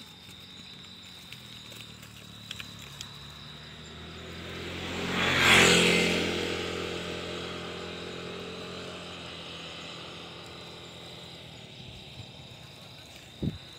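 A motor vehicle passing by, its engine growing louder for a couple of seconds and then slowly fading away, over a steady high insect drone. A brief pitched call comes near the end.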